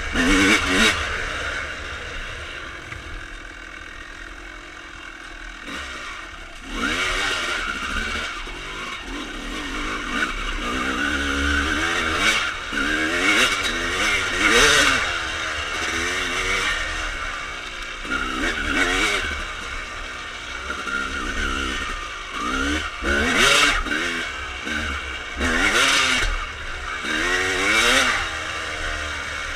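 1995 Honda CR250R's 250 cc two-stroke single-cylinder engine, fitted with full Pro Circuit pipes, running under a rider on a dirt trail. It settles to a lower, steady run for a few seconds near the start, then revs up and falls off over and over as the throttle is worked.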